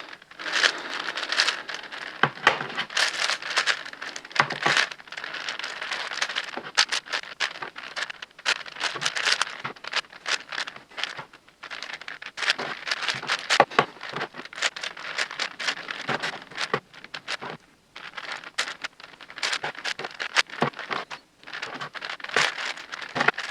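Plastic layers of a 10x10x10 Rubik's cube being turned by hand in quick runs: a continuous clicking, rattling clatter, broken by a few brief pauses.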